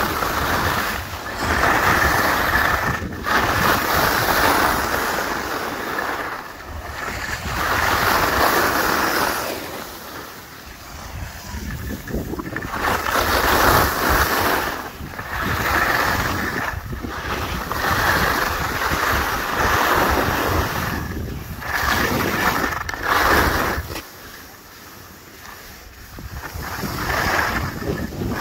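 Skis scraping and hissing over packed snow through a run of turns, swelling and fading with each turn, mixed with wind on the microphone.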